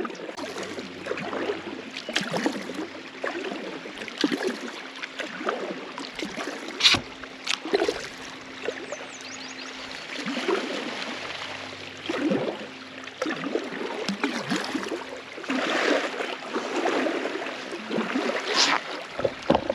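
Kayak paddle strokes swishing and splashing through lake water in an uneven rhythm, with a sharp knock twice.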